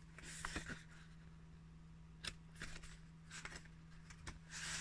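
Paper rustling as the pages of a softcover magazine are handled and turned: several short, soft rustles.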